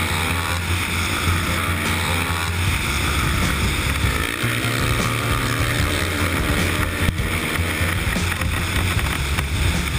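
Suzuki 450 racing motorcycle's single-cylinder four-stroke engine running hard, heard from the bike itself over a steady rushing hiss. The engine note eases off and picks up again a few times as the throttle is closed and reopened through the turns.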